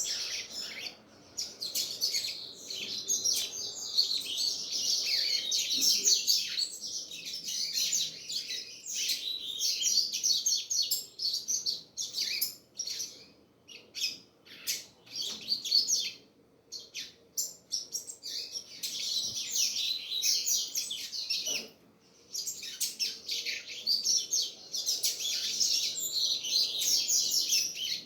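Double-collared seedeater (coleiro) singing in long, fast twittering phrases, broken by short pauses around the middle and a brief gap about three quarters of the way through.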